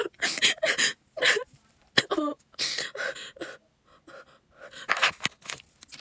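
A woman sobbing: gasping, wheezy breaths, sniffles and short whimpers in irregular bursts, with a quieter moment about four seconds in.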